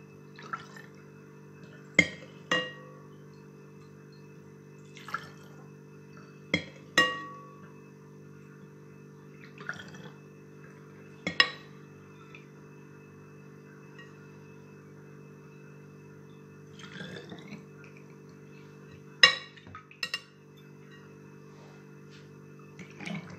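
Metal ladle clinking against a glass bowl and a plastic funnel while liqueur is ladled and poured into a bottle: about a dozen sharp, spaced clinks, some ringing briefly, with liquid pouring between them.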